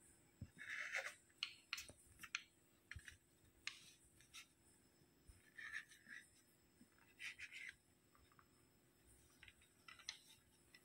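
Faint scraping and tapping of a kitchen knife cutting through a slice of soft white bread and its crust onto a wooden chopping board, in a few short clusters of strokes that die away near the end.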